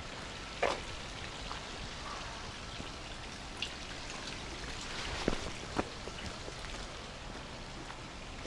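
Steady hiss of light rain, with a few scattered sharper taps.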